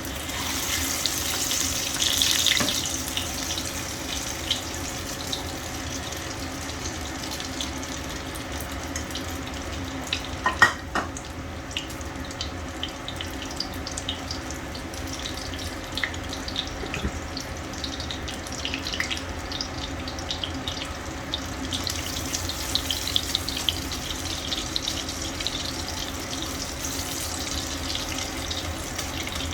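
Water running steadily from a kitchen tap into a sink, with small splashes and crackles throughout and a brief clatter about ten seconds in.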